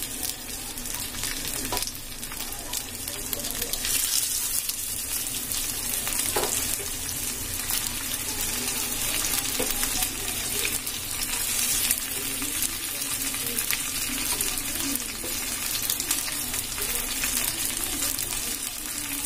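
Masala-coated fish slices shallow-frying in oil on a flat tawa griddle: a steady sizzle with scattered crackling spits of hot oil.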